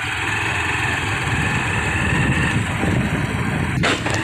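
Small two-wheeler's engine running steadily as it rides, with a brief sharp click near the end.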